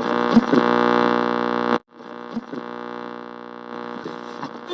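A steady electronic hum with many even overtones. It holds loud for about two seconds, breaks off briefly, then returns more quietly.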